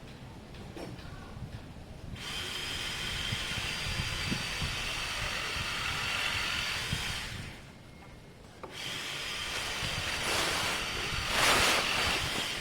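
Power polisher spinning a pad, buffing polish into stained scooter bodywork. It runs with a steady whine for about five seconds, stops briefly, then runs again for about four seconds.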